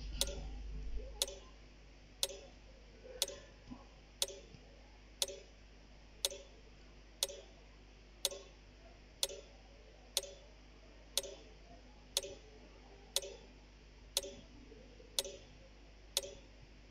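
Quiz timer ticking steadily, one sharp tick every second.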